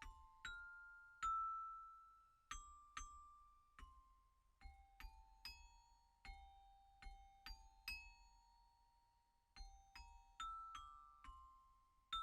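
Quiet background music: a slow melody of single bell-like mallet notes, each ringing out and fading.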